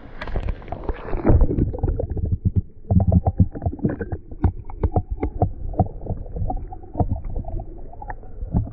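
Muffled underwater gurgling and sloshing, picked up by a camera held beneath the creek's surface. A quick run of small knocks and clicks comes from hands and the fish moving against it.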